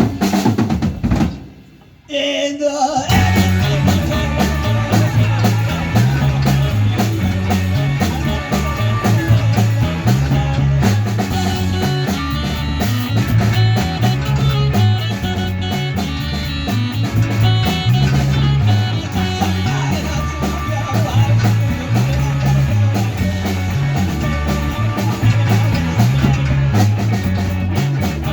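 Rock band playing with drum kit, bass and guitar, the bass stepping through a repeating pattern. About two seconds in the band drops out briefly, then comes back in together.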